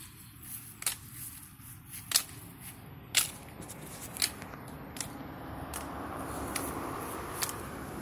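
Thin dry sticks whacked against a tree trunk: eight sharp cracks about a second apart. A passing car's noise swells up over the last couple of seconds.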